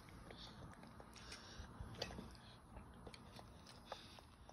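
Faint, scattered wet clicks and smacks of a toddler eating juicy watermelon: mouth sounds and fingers in the fruit in the bowl. The sharpest click comes about two seconds in and another just before the end.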